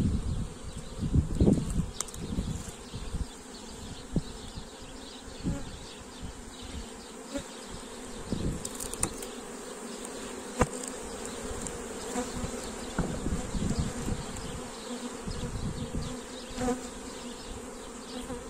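Honeybees buzzing in a steady hum from an opened hive that is being worked, with a few light knocks scattered through.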